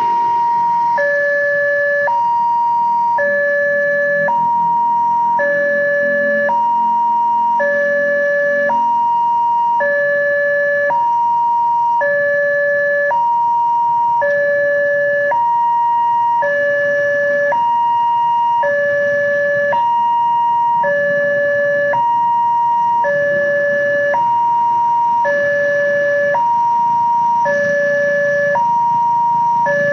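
Railway level-crossing warning siren sounding continuously as a two-tone alarm, alternating between two pitches about once a second.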